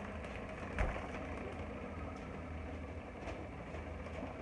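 A steady low hum, with one soft knock about a second in and a few faint clicks.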